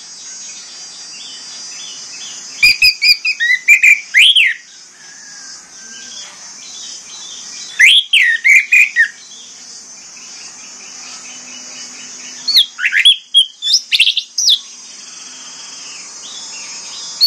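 Orange-headed thrush (anis merah) singing: three bursts of rapid, rising and falling notes, each one to two seconds long, separated by pauses of a few seconds.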